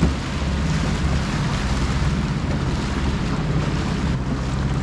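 A small boat's outboard motor running steadily under way, with wind buffeting the microphone and water rushing along the hull.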